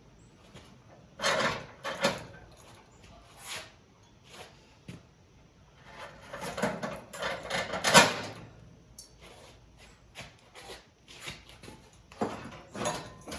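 Steel scraping and knocking in irregular bursts as a cut-away section of a rusted Jeep Wrangler frame rail is worked loose and pulled out. The loudest scrape comes about eight seconds in.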